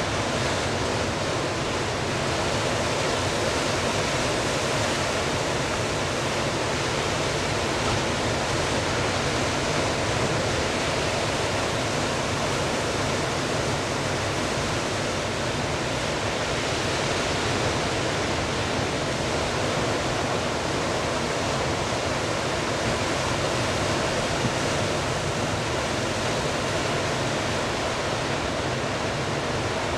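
Ocean surf breaking along the shore: a steady, unbroken rushing noise.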